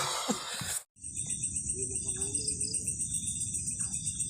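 Crickets chirping in a steady, fast-pulsing high trill over a low background rumble, starting after a sudden cut about a second in; before the cut a man's voice trails off.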